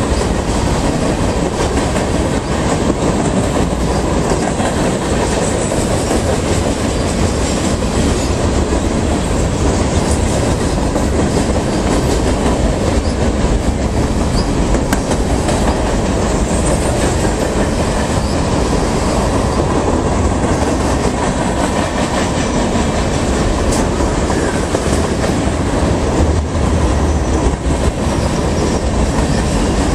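BNSF freight train's cars (boxcars, gondolas, tank and hopper cars) rolling past on the near track: a steady rumble with the clatter of wheels over the rail.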